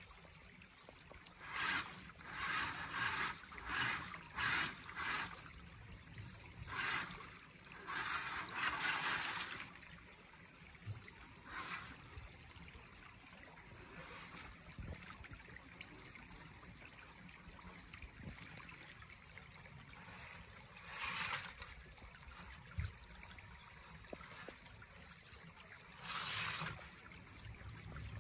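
A shallow creek trickling over rocks, with repeated short bursts of splashing as an RC crawler truck's wheels churn through the water. The splashing bunches together in the first ten seconds, then comes only a few more times.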